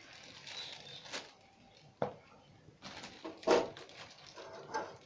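A few scattered knocks and clatters of a ceramic plate being set down and handled on a table, the loudest about three and a half seconds in.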